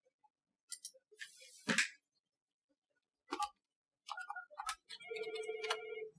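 Several clicks and knocks, then a telephone ringing near the end: a short warbling tone followed by a steady electronic ring about a second long.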